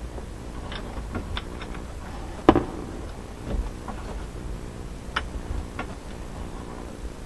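Scattered clicks and knocks of a headlight switch and its wiring plug being handled and fitted, with one louder knock about two and a half seconds in, over a steady low hum.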